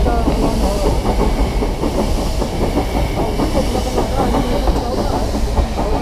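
Nilgiri Mountain Railway steam-hauled train running along the track, heard from inside a coach: a steady dense clatter of wheels and carriages with a low rumble beneath.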